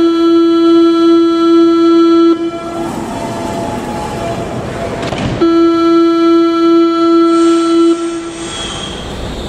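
Door-closing warning tone of a Berlin U-Bahn IK train, sounding twice as one steady buzzing tone of about two and a half seconds each, with a pause of about three seconds between. Near the end a steady hiss sets in.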